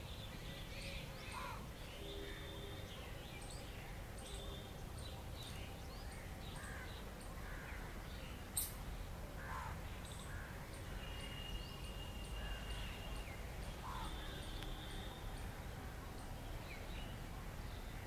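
Park bird ambience: scattered short calls from several birds over a steady low background rumble, with a few brief held tones and one sharp click about eight and a half seconds in.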